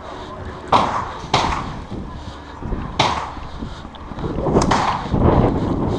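Three sharp knocks, the first two about half a second apart and the third about two seconds later, then a longer stretch of scuffling noise.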